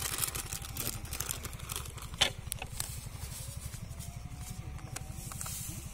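Crinkling and rustling of a plastic salt packet being handled and opened, with scattered sharp clicks, the loudest about two seconds in, over a steady low rumble.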